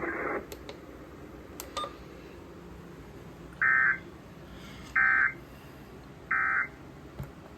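Three short bursts of screechy digital data tones, evenly spaced a little over a second apart. They are the SAME end-of-message (NNNN) code that closes a NOAA Weather Radio required weekly test, heard from a weather radio.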